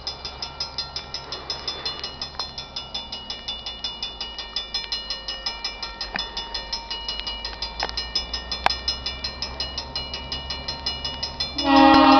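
Railroad grade-crossing warning bell ringing steadily at about three strikes a second while the signals flash for an approaching train. Near the end a locomotive air horn starts a loud, steady blast, the loudest sound.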